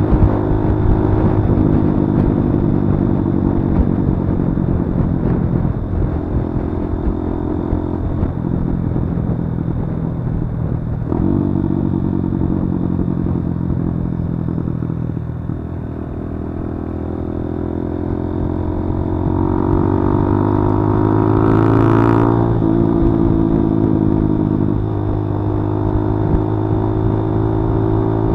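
Kawasaki D-Tracker 150's single-cylinder four-stroke engine running while being ridden, its note climbing steadily under throttle about two-thirds of the way through and dropping suddenly in pitch a few times.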